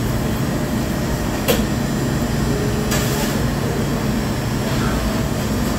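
Fast-food restaurant background noise: a steady low rumble, with a few short clatters about one and a half and three seconds in.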